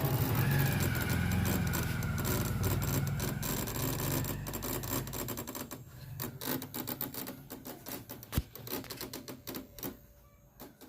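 Livguard home inverter crackling in backup mode: fast, irregular clicks over a low hum that fades out about five seconds in. The fault was traced to a 1-ohm resistor on the circuit board that battery acid had corroded.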